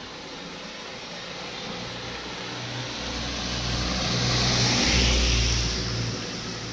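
A Mitsubishi Colt pickup truck drives past close by. Its engine and tyres on the wet road grow louder to a peak about five seconds in, then fade.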